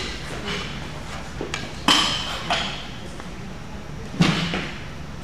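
A few sharp knocks echoing in a large gym hall, the loudest about four seconds in.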